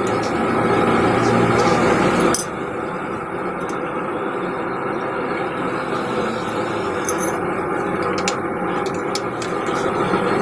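A forge running with a steady rush, with scattered light metallic clinks of tongs and steel. The rush drops somewhat about two seconds in.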